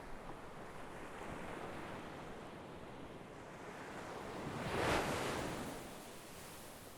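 Ocean waves breaking on a shore: a steady wash of surf, with one wave swelling to a loud crash about five seconds in and then ebbing away.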